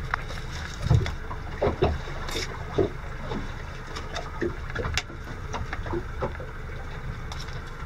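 Small open boat on the water: a steady low rumble with water lapping at the hull, and scattered knocks and clicks as hands work a longline's hooks and monofilament in a plastic basket.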